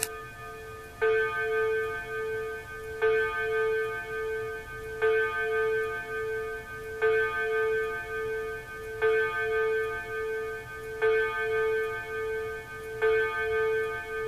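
Seth Thomas wall clock striking the hour on its chime: a single ringing note about every two seconds, seven strokes in all. Each note rings on with a wavering hum until the next.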